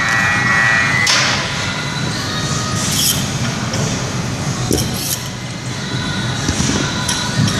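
Clinks and knocks of weight plates being handled as a barbell is unloaded and reloaded, a few scattered strikes over a steady room hum. A high ringing fades in the first second and is cut off by a knock.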